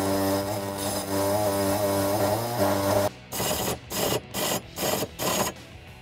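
Handheld body saw running steadily as it cuts through the plastic dash bracket, stopping sharply about three seconds in. Then come five or so short, sharp rasping noises, about two a second.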